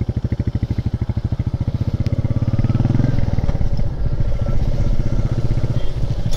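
Royal Enfield Meteor 350's single-cylinder engine thumping at low revs as the motorcycle rolls, getting louder about two and a half seconds in as the throttle is opened.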